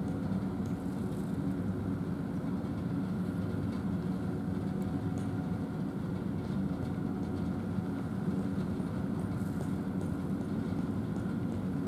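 Steady low mechanical drone with a faint fixed hum, unchanging throughout.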